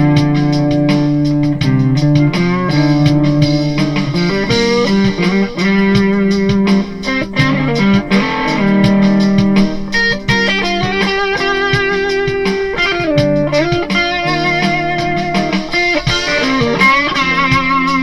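2022 Kiesel Delos electric guitar played through a PRS HDRX 20 amp: a melodic jam of sustained notes over lower held tones, with wavering vibrato on the higher notes in the second half.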